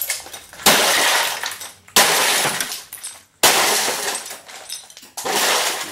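Four heavy blows into a television set, each one setting off about a second of glass shattering and crashing that dies away.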